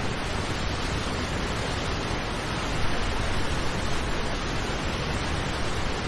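Paulo Afonso waterfall on the São Francisco River, a heavy torrent of white water crashing over a rock ledge: a steady, even rush of water noise with a deep low rumble.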